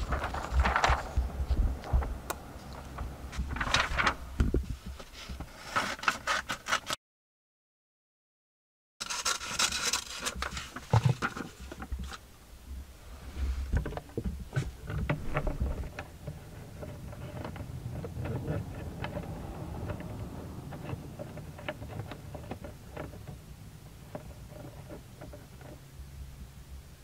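Handling noise at a car's side mirror: scattered scrapes, clicks and rustles as hands work the mirror glass and a paper picture. The sound drops out to dead silence for about two seconds after a quarter of the way in.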